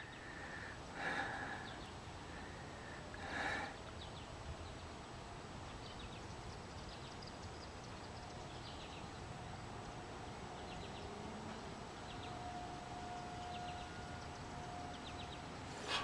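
A distant outdoor warning siren heard faintly as a steady tone, coming in about halfway through and growing a little stronger near the end. Under it is outdoor background with scattered short high chirps.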